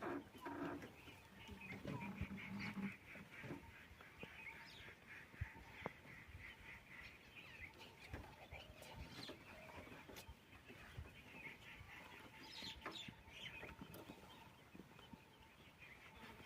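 Wild birds calling and chattering, with a fast pulsing high chirr throughout and a few lower, fowl-like calls in the first three seconds.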